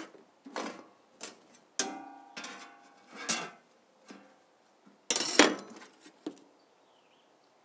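Sheet-metal battery box being turned over and set down on a metal work table: a series of irregular metallic clanks and knocks, some ringing briefly, the loudest about five seconds in.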